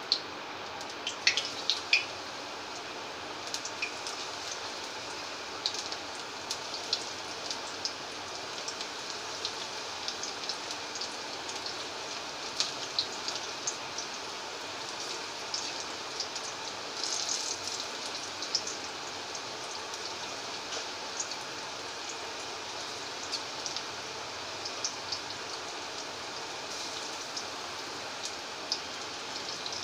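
Semolina pakoras deep-frying in hot oil in an aluminium kadai: a steady sizzle with a continual light crackle.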